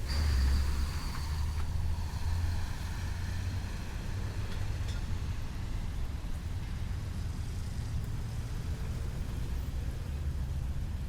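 Traffic at a busy city intersection: a steady low rumble of car and truck engines and tyres. It is loudest in the first couple of seconds, as a vehicle passes close with a faint high whine, then settles to an even drone.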